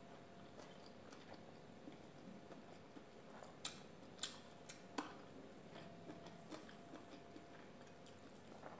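Faint chewing and mouth sounds of a person eating rice and prawn by hand, with a few short sharp clicks around the middle.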